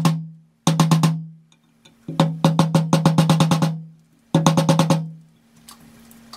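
Runs of quick light hammer taps, about six or seven a second, each ringing with a low note, on the nameplate of a Getriebebau NORD helical gearbox housing as the plate is fastened on. There is a short run at the start, another about a second in, a longer run of a dozen or so taps from about two seconds, and a last short run around four and a half seconds.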